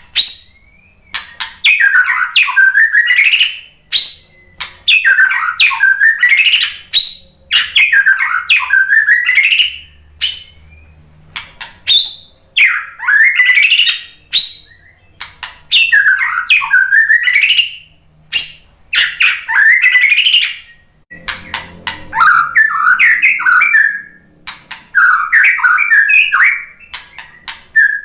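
White-rumped shama (murai batu) singing loudly in varied whistled phrases of about two seconds each, with short pauses between them. Near the end the phrases turn choppier, with quick runs of short notes.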